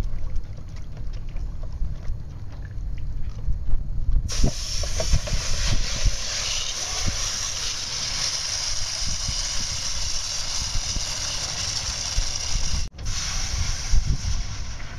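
Wind buffeting the microphone on a boat, a heavy low rumble. About four seconds in, a steady rushing hiss joins it, and a brief drop-out comes near the end.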